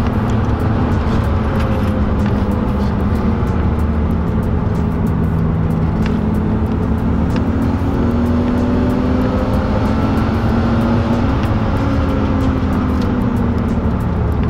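BMW E36 320i's two-litre straight-six engine pulling under acceleration in gear, its revs climbing, heard from inside the cabin over road and tyre noise.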